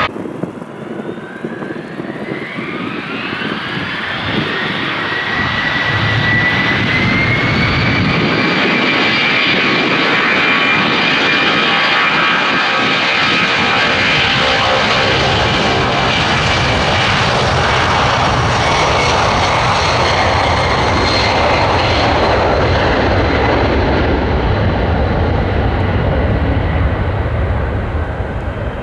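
Boeing 757-200F freighter's twin turbofan engines spooling up to takeoff thrust: a whine rising in pitch over the first several seconds, then a steady loud roar with a deepening rumble as the jet rolls down the runway and lifts off near the end.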